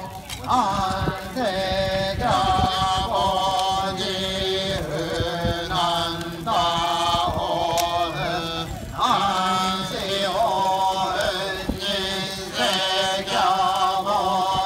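A group of Shugendo yamabushi chanting in unison as part of a goma fire rite. The chant comes in short phrases of about one a second, each rising and falling in pitch, over a steady low drone of voices.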